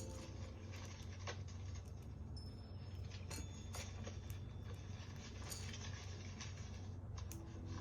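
Scattered light clicks and rattles of small plastic LEGO pieces being handled, about one or two a second, over a steady low hum.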